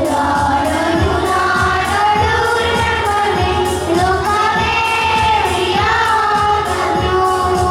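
Children singing a melodic song over instrumental accompaniment with a steady beat.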